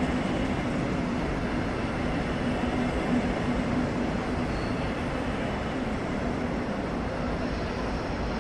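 Metronom double-deck passenger train pulling out through the station hall: a steady rumble of the coaches rolling on the rails, with a steady drone that fades out about six seconds in.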